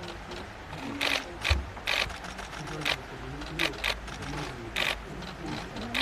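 Press photographers' camera shutters clicking, about eight short sharp clicks at irregular intervals, some in quick pairs, over a low background murmur.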